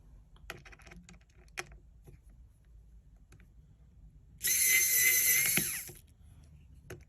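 Small light clicks of a precision screwdriver and tools as screws are taken out of a cover plate inside an iPhone 7 Plus. About four and a half seconds in, a loud high whirring with a steady pitch lasts about a second and a half.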